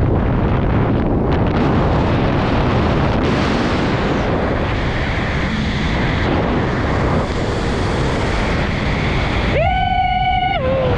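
Wind buffeting the camera microphone during a skydive descent, a steady loud rush. About nine and a half seconds in, a high pitched note lasting about a second rises in over the wind and slides down as it ends.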